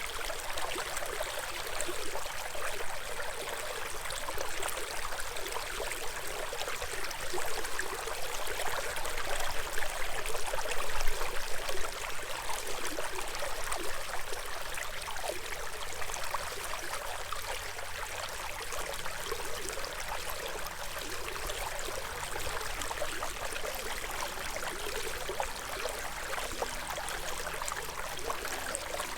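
Stream water flowing steadily, a continuous rush and trickle, swelling a little louder for a few seconds midway.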